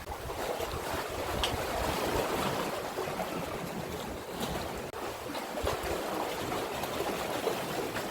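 Sea water washing and swirling at the shore, with wind rumbling on the microphone.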